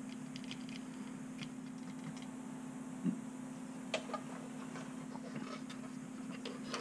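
Scattered small plastic clicks and taps as a 3D-printed body shell is handled and fitted onto a miniature RC crawler chassis, with a dull thump about three seconds in, over a steady low hum.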